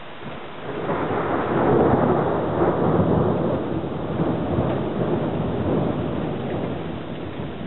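Thunder rolling: a rumble that builds about a second in, peaks, then slowly dies away over several seconds.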